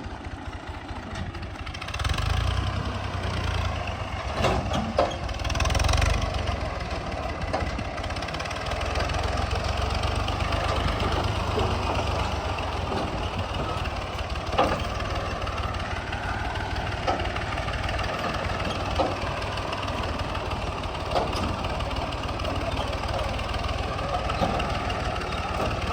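Massey Ferguson 385 tractor's diesel engine running steadily under load while driving a mustard thresher, with the thresher's continuous rattling hum over the engine's low rumble. The sound swells twice in the first several seconds, and a few sharp knocks stand out here and there.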